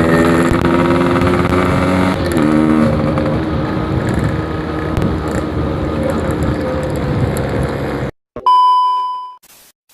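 Yamaha RX-King 135 cc two-stroke single running through a packing-power exhaust while riding, revs climbing, dropping and climbing again about two seconds in. It cuts off suddenly about eight seconds in, followed by a short electronic beep that fades out.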